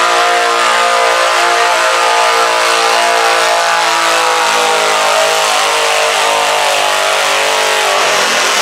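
Garden tractor engine running hard at full throttle as it drags a weighted stoneboat pulling sled, its pitch slowly falling as it labours under the load. About 8 seconds in, the steady engine note breaks up into a rougher noise.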